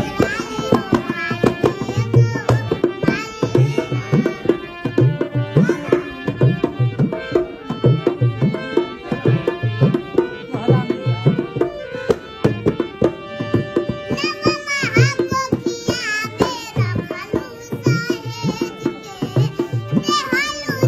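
Song accompaniment with tabla playing a steady rhythm under held instrumental tones. A high singing voice with a wavering pitch comes in about fourteen seconds in and again near the end.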